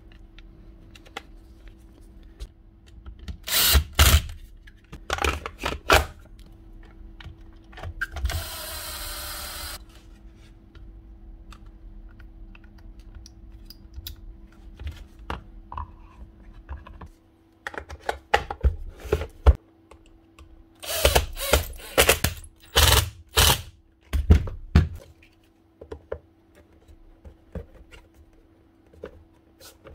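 Parts of a Makita JR3070 reciprocating saw being put back together by hand: scattered clicks, knocks and rattles of housing and metal parts, with a short power-tool run of about a second and a half around eight seconds in and a dense run of knocks in the second half. A steady low hum runs underneath.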